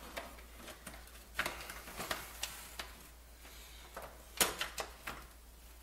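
Scattered light clicks and knocks of a Coleco Adam's plastic case parts being handled and test-fitted over the chassis, with the loudest cluster of taps about four and a half seconds in.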